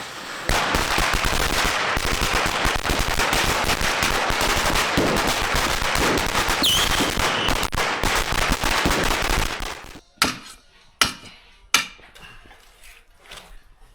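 A long string of firecrackers going off as a dense, rapid crackle for about nine seconds. It stops suddenly and is followed by a few separate loud bangs.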